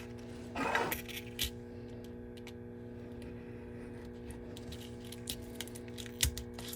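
Light clicks, taps and metallic handling noises from a slip-joint pocketknife being handled and its blade worked, with a short scrape about a second in and sharper clicks near the end, over a steady low hum.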